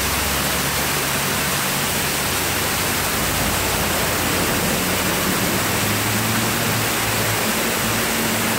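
Waterfall's steady, even rush of water pouring down a rock face and splashing onto the rocks below.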